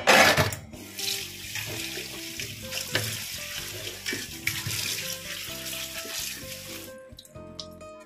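Kitchen tap running into a sink as spinach leaves are rinsed. It starts with a loud gush and shuts off about seven seconds in. Background music plays underneath.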